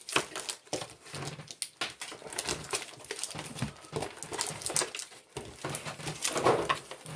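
Foil booster packs and cardboard packaging being handled, rustling and crinkling in a run of short crackles and clicks.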